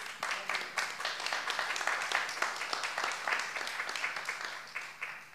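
Audience applauding: a dense patter of clapping that fades out near the end.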